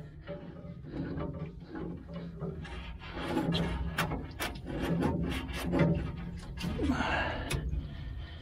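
Metal scraping and clicking as a thin CB radio antenna is worked back and forth through a clogged smoker drain pipe to break up the blockage, with a run of sharp clicks from about three seconds in.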